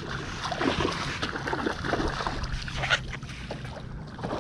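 Irregular water sloshing, rubbing and small knocks against a kayak while a hooked snook is being fought, with one sharper click about three seconds in.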